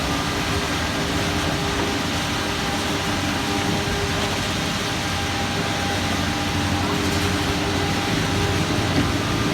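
Construction machinery at a concrete pour, running steadily: a constant engine drone with several steady humming tones over rumbling noise.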